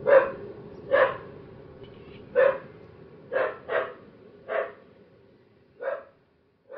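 A dog barking: about eight single barks roughly a second apart, the later ones quieter, over faint background noise that fades out around five seconds in.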